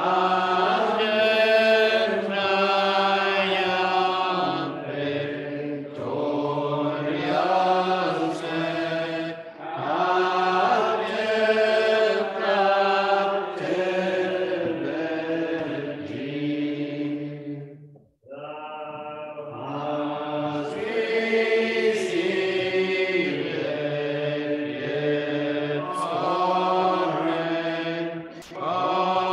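Unaccompanied voices singing a metrical psalm slowly, in long held notes, with a brief breath between lines about two-thirds of the way through.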